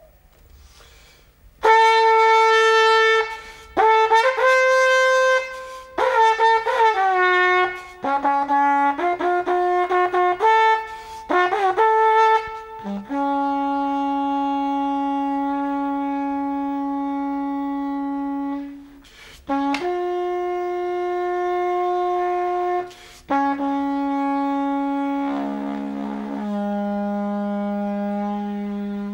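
Horn-like notes blown on a homemade wind instrument made of plastic tubes: a run of short notes, some sliding in pitch, then long held notes, the last one lower.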